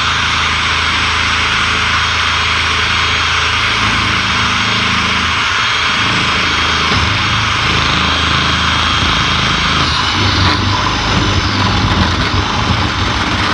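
Power drill running steadily as it bores through the first layer of a solar panel's double-layered aluminium frame, its pitch and load shifting a little partway through.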